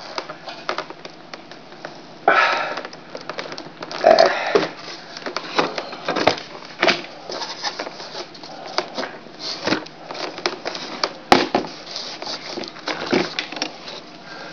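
Hands working a glued foam RC-plane tail section down into its slots, making irregular rustling, scraping and clicking handling noise with a few sharper knocks, one about eleven seconds in.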